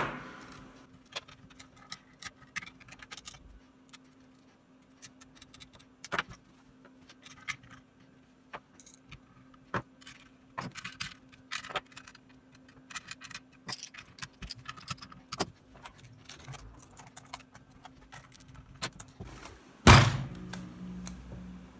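Small clicks, taps and rattles of parts and screws being handled while a Dunlop Cry Baby wah pedal's enclosure is put back together, over a faint steady hum. A sharp knock right at the start and a louder thump near the end stand out.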